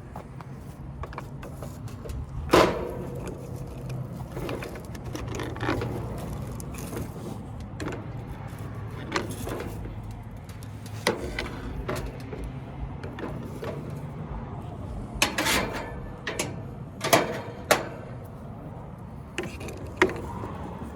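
Metal threaded rod scraping and knocking inside a furnace pipe as dead birds are fished out, in irregular clicks, knocks and scrapes over a low steady hum, with the sharpest knocks about two and a half seconds in and a cluster between fifteen and eighteen seconds in.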